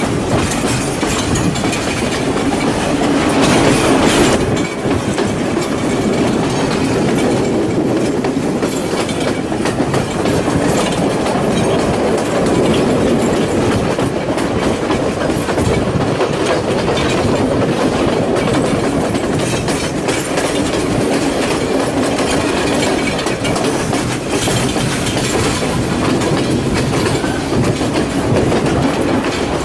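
Passenger train carriage running along the line, heard from on board: a steady rumble with the wheels clattering over the rail joints. There is a louder stretch about three seconds in.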